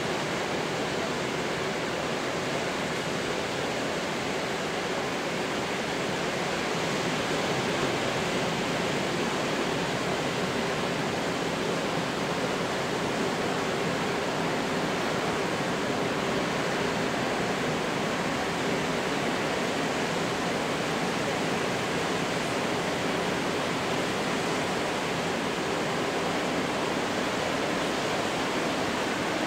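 Ocean surf breaking on a rocky shore, heard as a steady, even rush with no single wave standing out.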